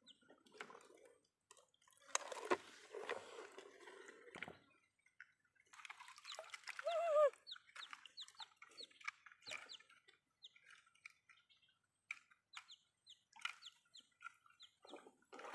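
A baby chick peeping in short, high, falling chirps, repeated many times through the second half, with one louder, lower call about seven seconds in. Earlier, muddy water sloshes and splashes as toy trucks are pushed through a puddle.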